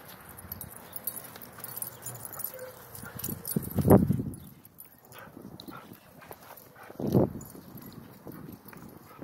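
Dogs tussling over a twig on dry dirt, with paws scuffing and small knocks throughout. Two short low growls stand out: the louder, lasting about a second, comes about four seconds in, and a shorter one comes about seven seconds in.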